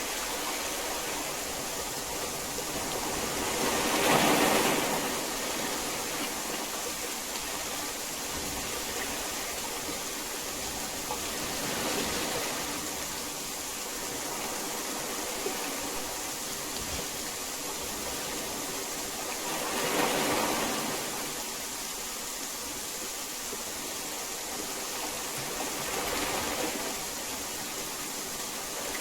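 Heavy rain falling in a steady, dense hiss that swells louder for a second or two about four times.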